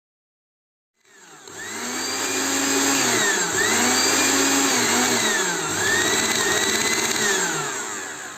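Restored Philips blender's electric motor starting up about a second in and running loudly, its pitch rising, holding and dipping three times before it fades near the end.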